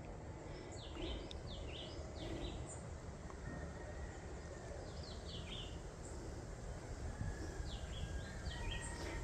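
Birds calling in short, high chirps that come in three quick clusters, over a low, steady outdoor background noise.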